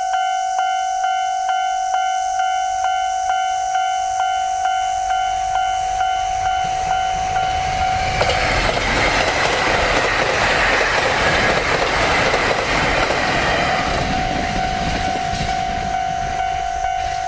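A JR Hokkaido KiHa 261 series diesel limited express passes at speed from about eight seconds in to about fourteen, the loud rush of its running noise covering everything. Before and after the train, a repeating electronic ringing alarm keeps sounding at about two strikes a second, typical of a Japanese level-crossing warning bell.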